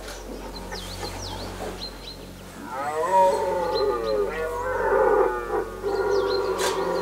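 Red deer stag roaring in the rut: a long, deep bellow begins about three seconds in, climbs and then sinks in pitch, and carries on to the end.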